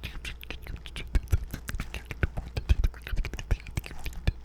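Close-miked ASMR mouth sounds: a fast, dense run of mouth clicks and smacks, many each second, with a steady low hum underneath.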